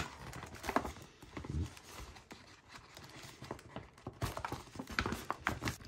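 Stiff paper shopping bag crinkling and rustling in the hands as it is pulled at to open it, with scattered small crackles and taps that get busier near the end.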